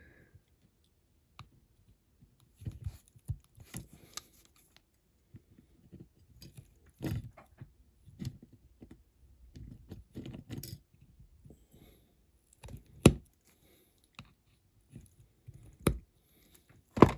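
Irregular small clicks, taps and scrapes from working on a die-cast toy car's metal base plate, which is not yet fitting properly and is being trimmed, with a few sharper clicks in the second half.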